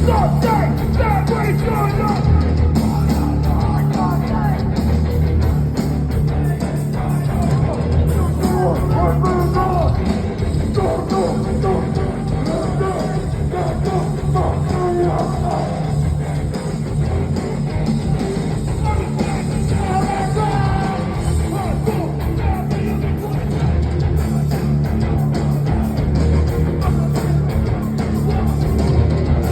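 A hardcore band playing live, recorded from the crowd: loud, distorted heavy rock with guitars, bass and drums, and vocals over the top.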